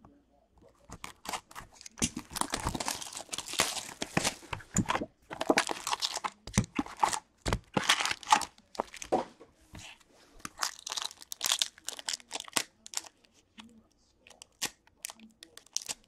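A box of hockey cards being opened by hand: a run of tearing and crinkling, dense through the first half, then scattered short crinkles as foil card packs are torn open and handled.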